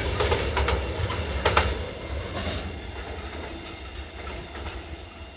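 Container wagons of an intermodal freight train rolling away, their wheels clicking over rail joints over a heavy low rumble. The rumble fades steadily after about two seconds as the train recedes.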